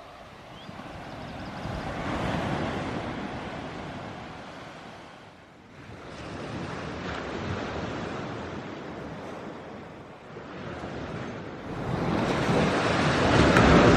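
Rushing outdoor noise of wind or surf, with no clear tone, swelling and easing in long surges and loudest near the end.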